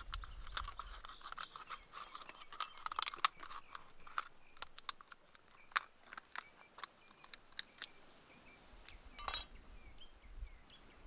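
Quick, faint scraping and clicking of a machete blade worked against a plastic cup, thinning out after about eight seconds. There is a short rustle a little after nine seconds.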